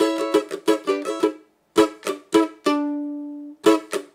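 Cavaquinho chords strummed with a pick in a rhythmic pattern: a quick run of down-and-up strokes, a short break, then a few strokes and a chord left to ring for about a second before it is cut off. The chord hand presses, mutes and releases the strings in time with the pick.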